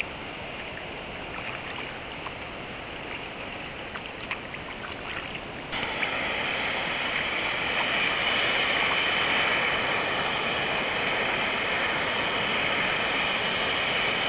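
Sea water lapping and splashing around a waterproof camera at the surface in the surf, with small drips ticking on the housing. About six seconds in it switches abruptly to a louder, steady rushing hiss.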